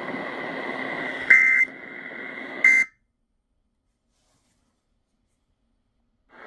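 Emergency Alert System end-of-message data bursts received on AM radio: two short, loud, buzzy digital bursts about a second and a half apart over radio hiss with a faint steady whistle. The audio then cuts to dead silence about three seconds in.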